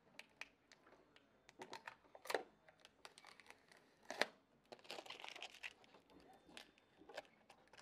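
Protective plastic film being peeled off an audio processor's front panel: faint crinkling and crackling, with two sharper snaps about two and four seconds in.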